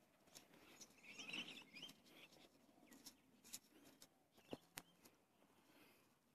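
Near silence with faint bird chirping: a few warbling calls about a second in and a couple more near the middle, with two soft clicks a little after that.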